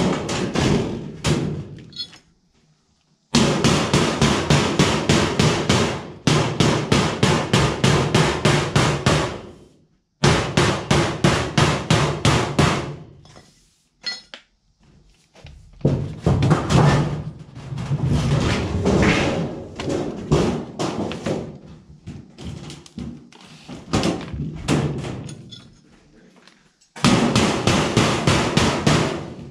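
A hammer striking along the edge of a galvanized sheet-metal duct panel, closing the seam and folding over its tabs. The strikes come quickly, several a second, in runs of a few seconds with short pauses between.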